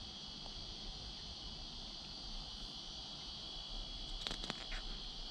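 Paper page of a picture book being handled and turned, a few short rustles a little after four seconds in, over a steady high-pitched background tone.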